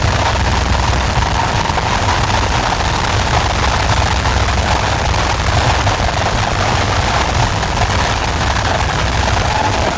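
Large DJ sound system playing at high volume: a steady deep bass rumble under an even hiss-like wash, with no clear melody or beat.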